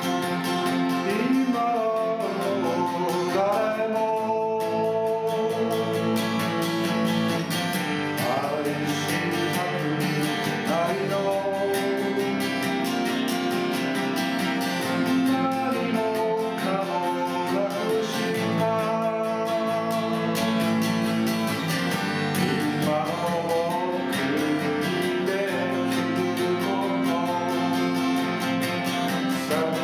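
Acoustic guitar strummed steadily, with a voice singing over it in a live one-take performance of a song.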